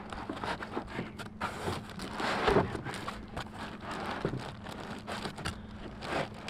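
Foam packing insert being worked free and lifted out of a cardboard box, with plastic wrap crinkling and foam rubbing and creaking in irregular rustles and crackles. The loudest rub comes about two and a half seconds in.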